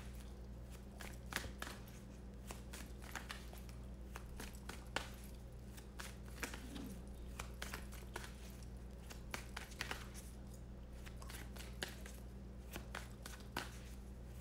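Tarot cards being shuffled by hand: soft, irregular flicks and slaps of cards, over a steady low hum.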